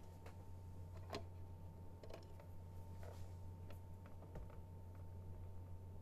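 Faint, irregular clicks and small handling noises at a desk, about one or two a second, over a steady low electrical hum.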